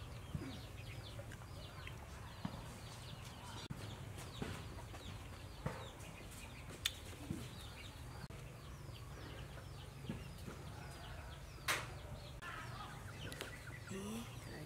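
Faint farmyard background: chickens clucking now and then among many small, quick high chirps, with a few light clicks.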